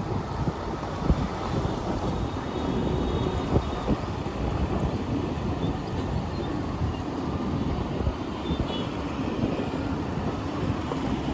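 Royal Enfield Hunter 350's single-cylinder engine running on the move, with wind buffeting the microphone.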